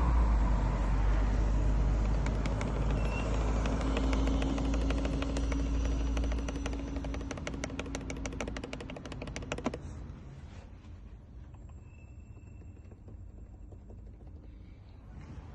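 Geely car engine running with a rapid, even ticking or clatter over a low rumble, the kind of engine knock the owners complain of; the rumble and ticking drop away sharply about ten seconds in.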